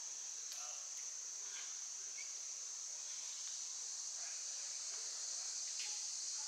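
A steady, high-pitched chorus of insects in summer woodland, with a few faint clicks about half a second in, at one second and near the end.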